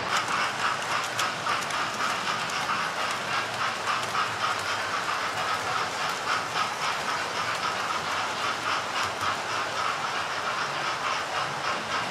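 Model trains running on a layout: a steady whirring rolling noise of small wheels and motors on metal track, with many small clicks as the wheels pass over rail joints.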